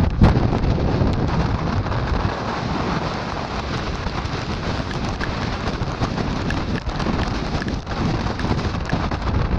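Typhoon storm noise: a steady, loud rush of wind and rain with waves churning in a reef lagoon, and a heavy low rumble of gusts on the microphone.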